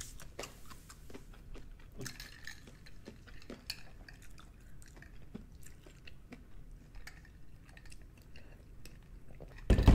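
Soft eating and drinking mouth sounds: faint chewing and sipping of ice water through a straw, heard as scattered small clicks and slurps. A short, louder sound comes near the end.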